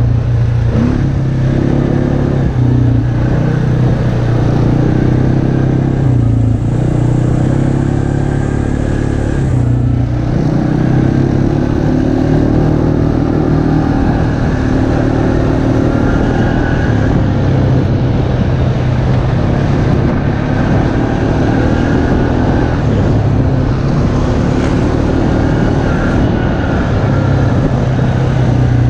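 Off-road vehicle engine running under way on a dirt trail, its pitch rising and falling with the throttle, easing off briefly about a third of the way in before pulling again.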